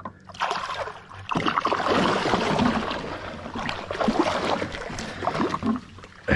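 Large tarpon thrashing and splashing at the side of a boat as it is gripped by the jaw and hauled up, water splashing and spilling off it. The splashing starts about half a second in and grows louder after about a second and a half.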